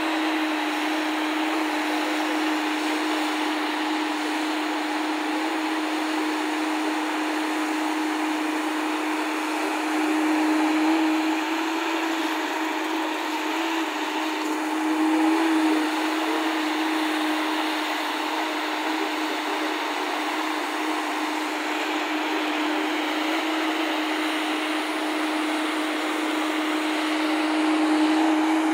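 JCB tracked excavator's diesel engine and hydraulics running under load as a steady drone, swelling briefly louder three times.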